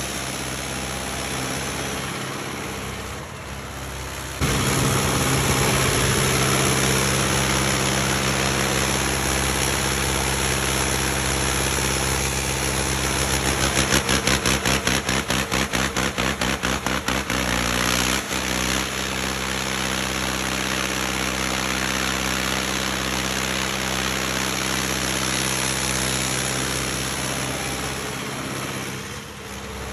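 Hindustan 60 tractor's diesel engine running steadily. About four seconds in it gets suddenly louder, as if revved up, and for a few seconds in the middle it throbs in a quick, even pulse before settling back to a steady run.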